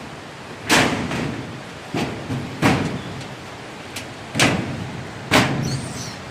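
Steel locker door and shelf being handled, giving a series of sharp bangs and clanks: about five loud ones spaced unevenly a second or so apart, with a few lighter knocks between.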